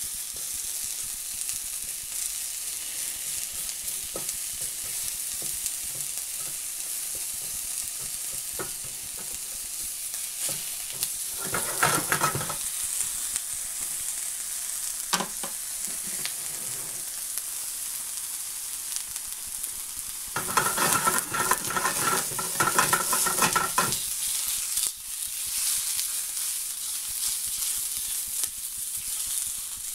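Beef burger and onions sizzling steadily in a non-stick frying pan. A spatula scrapes and stirs in the pan briefly about 12 seconds in and again for a few seconds after 20 seconds.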